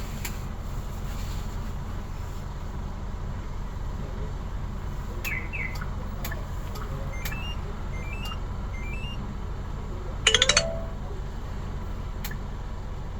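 The All New Mighty truck's diesel engine idling steadily after a remote start. Several short high rising chirps come between about five and nine seconds, and one loud short chirp with a rising pitch comes about ten seconds in.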